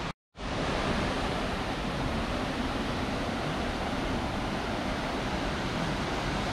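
Steady rush of a rocky mountain stream and small cascade pouring into a natural pool. The sound cuts out for a moment just after the start, then runs on evenly.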